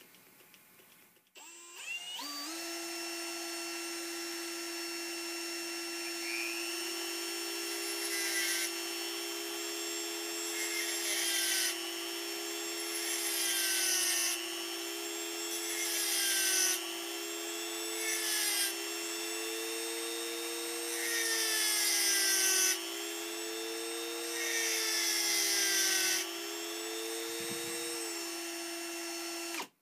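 Cordless drill running steadily, spinning a rivet gun nose in its chuck, alongside a Dremel rotary tool whose whine rises and falls. About seven short hissing bursts come as the quarter-inch carbide burr cuts a domed radius into the spinning nose. Both motors stop just before the end.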